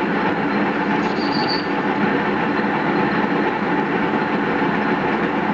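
Metal lathe running while a cutter faces the end of a steel part, a steady machining noise over the motor's hum, with a brief high squeal of the tool about a second in.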